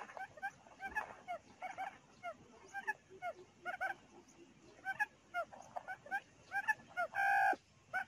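Quail calling: many short, clipped notes in quick clusters, with one longer, louder call about seven seconds in.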